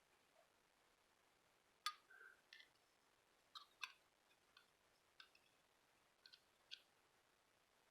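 Faint, scattered clicks and taps of small hard objects being handled, about nine in all, some in quick pairs.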